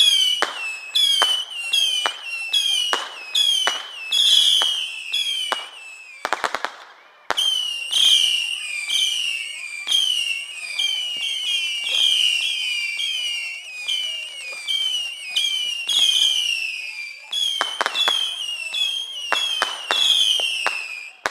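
Whistling fireworks going off in quick succession, about two a second: each is a sharp crack followed by a short whistle that falls in pitch. Dense crackling bursts break in about six seconds in and again near eighteen seconds.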